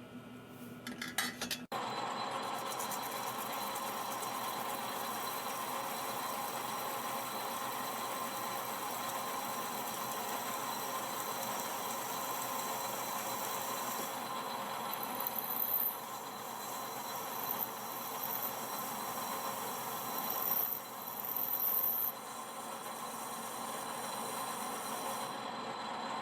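A few light metallic clinks, then a metal-working machine tool starts up about two seconds in and runs steadily, with a high-pitched squeal coming and going twice in the second half as the cutter bites into the metal.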